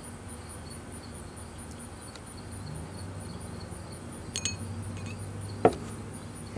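Insects chirping steadily in an even, high-pitched pulse. About four seconds in there is a faint glassy clink, and near the end a short, sharp knock.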